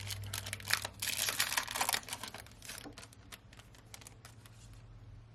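Foil wrapper of a Panini Prizm basketball card pack crinkling and crackling for about two seconds, then fading to a few softer ticks and rustles.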